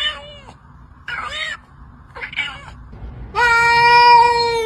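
Domestic cat meowing: three short meows, then one long, drawn-out meow at a steady pitch starting about three and a half seconds in.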